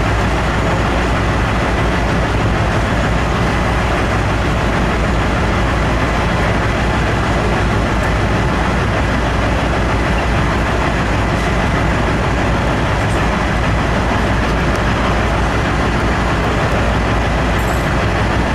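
Bulldozer's heavy diesel engine running steadily with a deep rumble, its level never changing.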